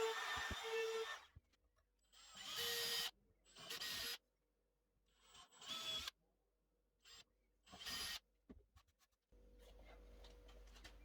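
A woodworking power tool running in short, separate bursts of about half a second to a second, each one cut off sharply, with silence between them. From about nine seconds in there is only a faint steady hum.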